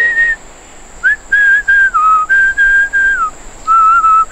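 A person whistling a tune in short held notes that step up and down in pitch, with a pause of about a second near the start.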